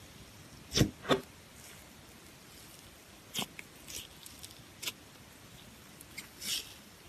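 Cloud slime being squeezed and poked by hand, giving short sticky pops and soft crackles at irregular moments, two of the louder ones about a second in.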